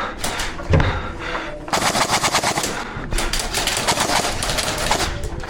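Airsoft guns firing: a few scattered shots, then from about two seconds in a long, rapid rattle of automatic fire, broken by a short pause near the middle.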